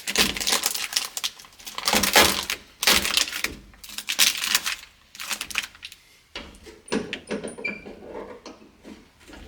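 Plastic moisture-barrier sheet being peeled back off an inner door panel: crinkling and crackling in dense bursts for about five seconds, then lighter, sparser rustling.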